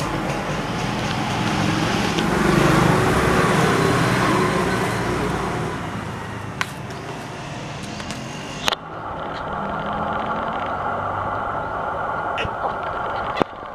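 Street traffic: a motor vehicle passing close by, loudest two to four seconds in and then fading. After a sudden change about nine seconds in, a steadier traffic hum follows, with a few sharp clicks.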